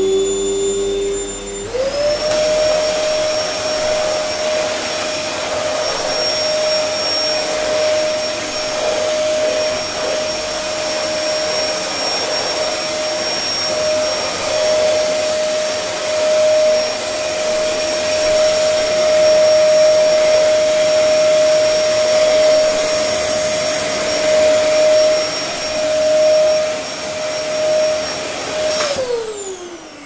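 Vacuum cleaner motor running with a loud, steady whine over a rushing hiss. It steps up to a higher speed about two seconds in, then winds down with a falling whine near the end.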